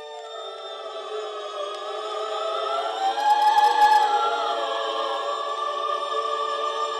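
Choir singing slow, sustained chords that swell louder about halfway through.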